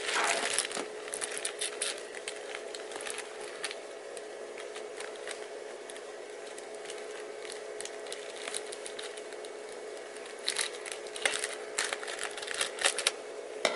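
Plastic wrapping on a camera box being handled and crinkled, in crackling bursts about a second or two in and again near the end, with a quieter stretch between. A faint steady hum runs underneath.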